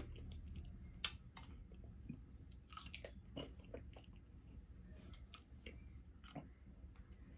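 Faint chewing and biting on boiled shrimp, with scattered small clicks and crackles as the shrimp is handled with extremely long nails.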